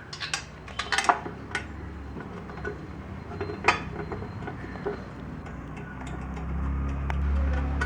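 Metal parts of a sanitizer stand and their bolts clinking and knocking as they are handled and fitted together, with a scatter of sharp clicks. A low rumble swells near the end.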